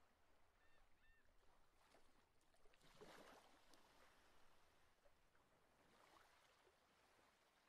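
Near silence after the music has ended: faint background hiss, with two tiny chirps about a second in.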